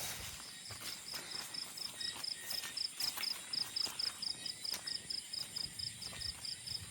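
Night insect chirping in a fast, even high-pitched pulse train, about seven chirps a second, which stops shortly before the end, with faint scattered ticks and rustles beneath.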